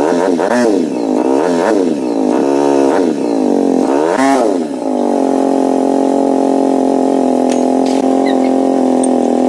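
Restored motorcycle engine running and being revved in several short blips, then holding a steady speed from about halfway through.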